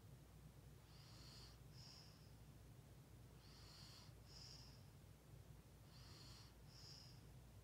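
Near silence: a low steady hum with faint paired hisses that repeat about every two and a half seconds.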